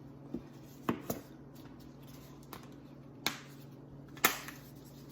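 About five short, sharp kitchen clicks and knocks as spice containers are handled while seasoning. The loudest comes a little before the end, over a faint steady hum.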